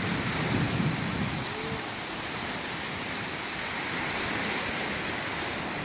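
Sea surf washing onto a beach: a steady rushing noise, with faint voices briefly in the first couple of seconds.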